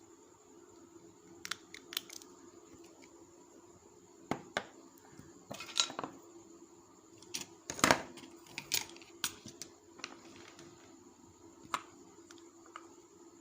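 Small tools handled while soldering an LED bulb's circuit board: scattered light clicks and taps, the sharpest about eight seconds in, over a steady faint hum.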